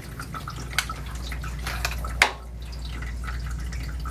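Water dripping and pattering off a freshly rinsed, soaked dog into a grooming tub: scattered irregular drips, with a sharper knock about two seconds in. A steady low bass hum runs underneath.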